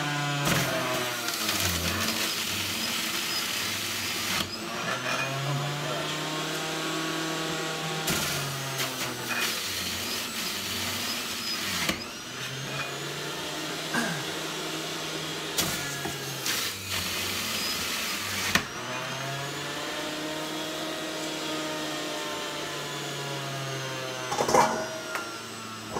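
Breville Juice Fountain Elite 1000-watt centrifugal juicer running, its motor pitch sagging and climbing back again and again as produce is pushed down the feed chute and shredded. Occasional knocks from the pusher and produce in the chute.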